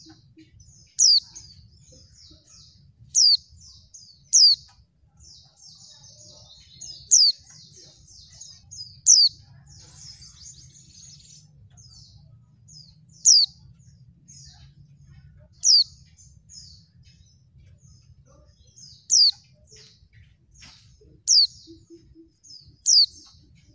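Female white-eye (pleci) calling: a loud, sharp, high note sweeping downward, repeated about ten times at irregular gaps of one to four seconds, with soft high twittering in between.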